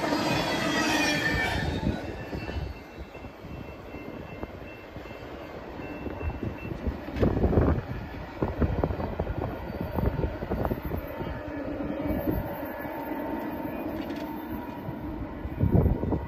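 A moving train: a high-pitched wheel squeal fades out in the first two seconds. After that comes a steady rumble with irregular clanks from the cars, the loudest about seven seconds in and again near the end.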